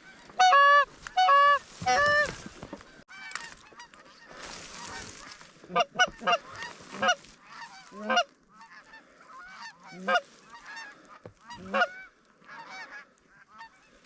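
Geese honking: six loud, evenly spaced honks in the first two seconds, then many fainter, varied honks and clucks from a flock through the rest, with a brief rushing hiss around four to five seconds in.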